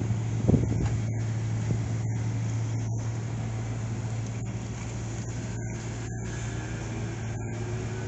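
Amphibious mini excavator's diesel engine running steadily at a constant pitch while it digs, with a brief low bump about half a second in.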